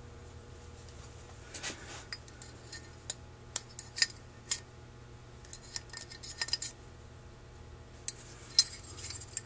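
Scattered light metal clicks and taps as a thin pick probes the check-ball well of a Holley 2280 two-barrel carburetor body while it is handled, with a low steady hum underneath.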